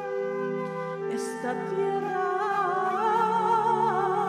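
A woman singing long, wavering notes with vibrato over sustained backing chords; her voice comes in about two seconds in.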